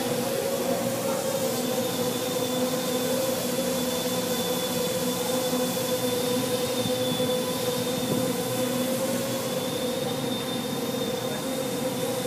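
Home-built quadcopter's electric motors and propellers humming steadily, the pitch wavering slightly up and down.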